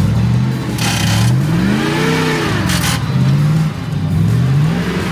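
ZIL-131 truck's V8 engine revving, its pitch rising and falling several times as the driver works the throttle, with two short bursts of hiss about one and nearly three seconds in.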